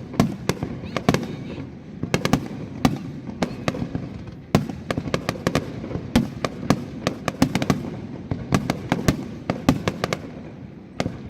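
Aerial fireworks display: many sharp bangs and crackling pops in quick, irregular succession, over a continuous low rumble of the bursts echoing.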